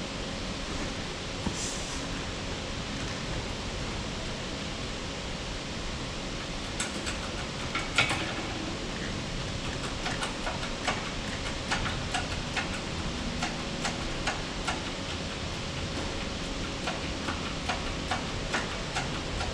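Steady background hiss with scattered light metallic clicks and taps, irregular and more frequent in the second half, as tail rotor parts are handled at a bench hydraulic press; one sharper click about eight seconds in.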